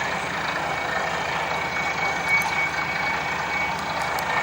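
Water bore drilling rig at work: steady machine noise with a faint, steady high whine running through it.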